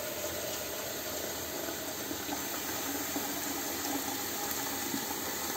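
Water from a kitchen tap running steadily into a stainless steel teapot, filling it.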